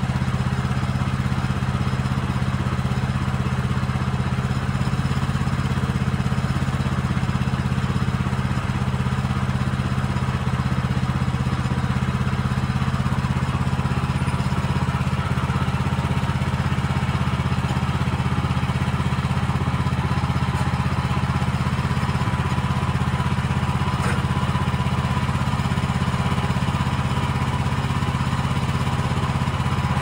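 Woodland Mills HM130MAX Woodlander portable sawmill's gas engine idling steadily, with no cut being made.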